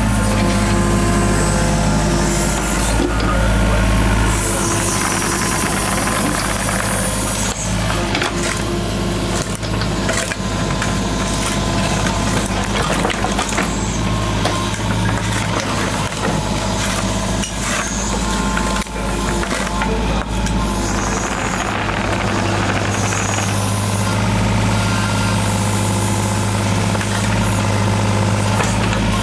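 A heavy engine running steadily on a building site, with scattered knocks and scraping over it, typical of machinery working during trench backfilling.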